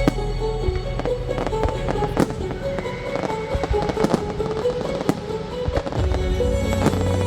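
Fireworks shells bursting with sharp bangs, about ten at irregular intervals, the strongest about two seconds in, over a music soundtrack of sustained notes.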